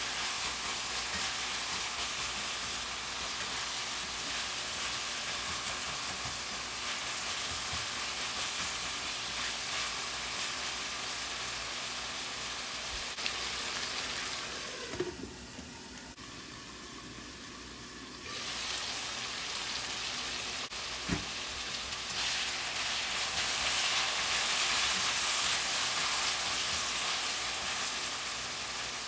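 Beef, potatoes and bell pepper sizzling in a nonstick wok as they are stirred with a plastic spatula. The sizzle drops for a few seconds past the middle, and there are a couple of light knocks.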